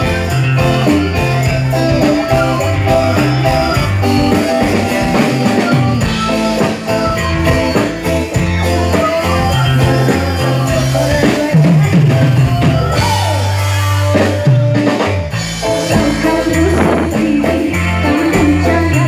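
Dangdut band playing loud and live: steady bass, drums and tambourine, with women singing into microphones.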